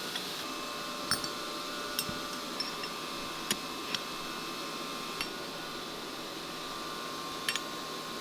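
Light metallic clicks and taps, about ten scattered short ones, as parts of a shifter assembly are test-fitted into the shift box, over a steady background hum.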